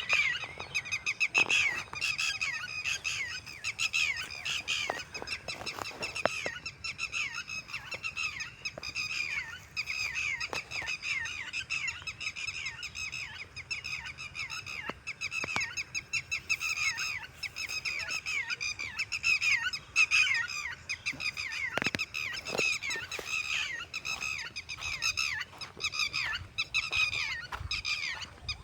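A flock of birds calling continuously: many short, downward-slurred chirps overlapping in a steady chatter, with a few faint knocks.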